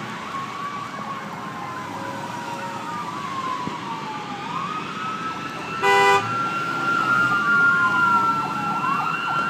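Fire engine siren wailing, several rising and falling tones overlapping and growing louder as the truck approaches, with a short loud horn blast about six seconds in.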